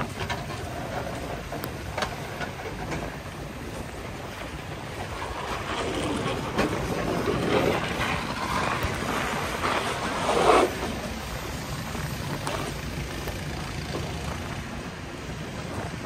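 Snow shovel scraping across a snowy sidewalk in several strokes, loudest about ten seconds in, over a steady rumble of wind and street noise.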